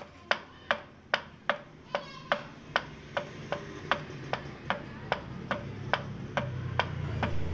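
Steady, evenly spaced ticking clicks, about two and a half a second, like a clock-ticking sound effect.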